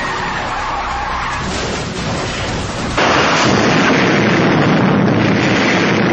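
Car and road noise, then about three seconds in a sudden, loud rush of noise from a vehicle exploding in a fireball that keeps going steadily.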